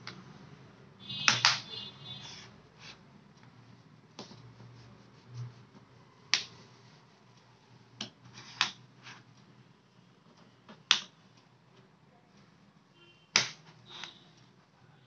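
Sharp plastic clicks and snaps, about half a dozen at irregular intervals, as a plastic pry pick is worked around the edge of an Amazon Kindle e-reader to pop its case apart.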